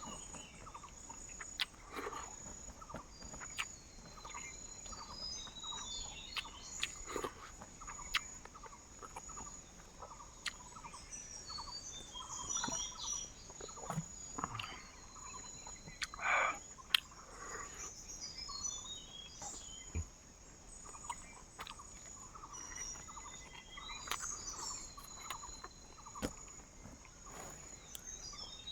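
Jungle ambience: a steady high-pitched insect drone with many scattered bird chirps and calls, and occasional sharp clicks and knocks.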